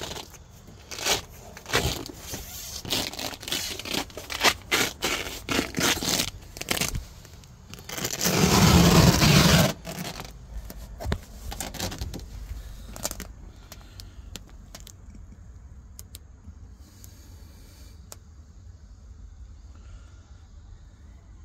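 Clicks, knocks and scraping as a boat console's access hatch is worked open, with one loud, longer scrape about eight seconds in. After that come only a few faint ticks.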